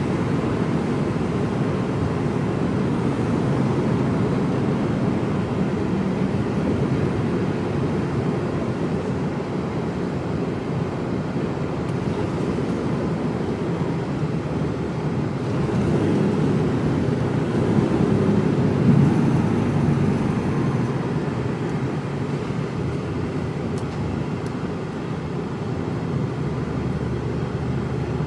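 Mercedes Actros truck driving, heard from inside the cab: a steady low engine drone with road noise, swelling slightly about two-thirds of the way through.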